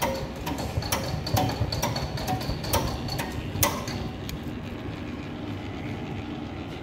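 INOTEC WT95 D sausage separating machine running with a steady rumbling hum, and sharp clicks about two a second as it separates the links. The clicks stop about four seconds in, leaving only the hum.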